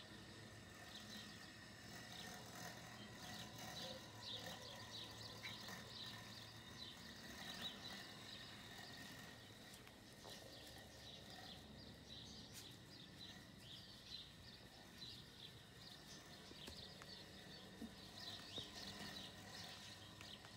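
Faint outdoor garden ambience with many short, high chirps of birds singing in the background.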